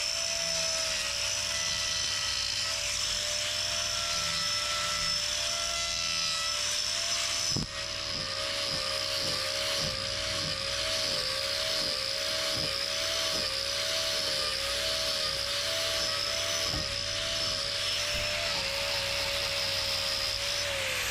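Electric angle grinder running on a cow's hoof during a maintenance trim, a steady whine that dips slightly in pitch again and again as it bites into the hoof horn. It spins down near the end.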